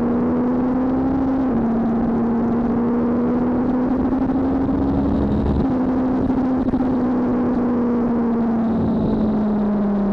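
BMW S1000RR's inline-four engine pulling hard at speed, its pitch climbing, dropping sharply at an upshift about a second and a half in, then climbing again before easing off and falling steadily as the bike slows, over constant wind rush.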